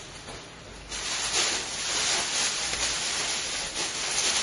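A steady hiss that starts abruptly about a second in and wavers in strength.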